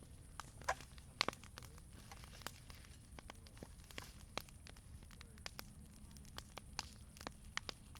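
Wood bonfire crackling, with sharp irregular pops and snaps over a low steady rumble of the flames; a couple of louder pops about a second in.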